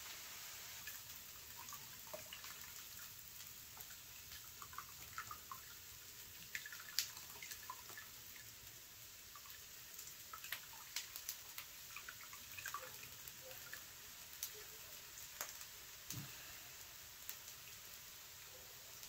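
Melted beeswax ladled into a mesh screen strainer: faint dripping and trickling, with light scattered clicks of the metal ladle against the strainer.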